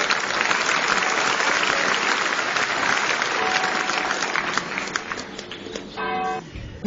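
Theatre audience applauding, thinning out after about five seconds, followed by a brief pitched note just before the sound cuts off abruptly.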